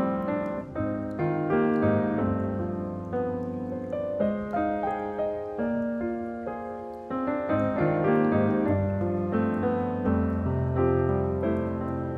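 Background music: solo piano playing a gentle melody over sustained chords.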